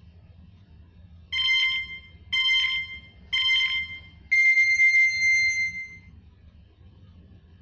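Electronic countdown beep sound effect: three short beeps about a second apart, then one longer, higher beep.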